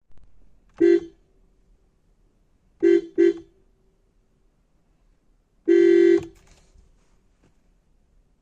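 Maruti Suzuki Brezza car horn sounding in four blasts of one steady pitch: a short toot, then two quick toots close together, then a longer honk of about half a second.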